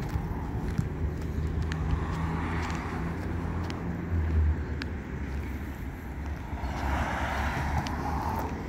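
Street traffic: a steady low rumble with a car passing close by near the end, its tyre noise swelling and fading.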